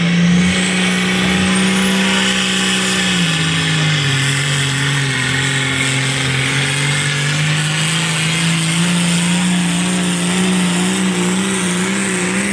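A competition pulling tractor's diesel engine running hard under full load as it drags the weight sled. About three seconds in the engine note drops sharply as it bogs under the growing load, then climbs slowly back up and wavers near the end. A thin high whine rises over the first three seconds.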